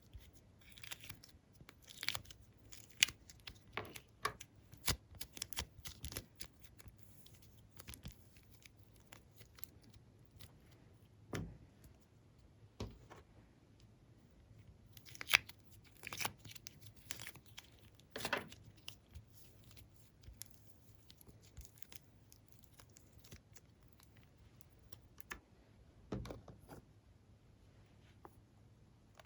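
Glossy slime being handled: irregular soft sticky pops and crackles, in flurries with pauses between.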